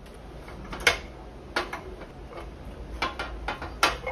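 Several sharp clicks and light knocks of a portable glass tea-infuser cup and its lid being handled, unscrewed and set down on a small table, over a steady low rumble.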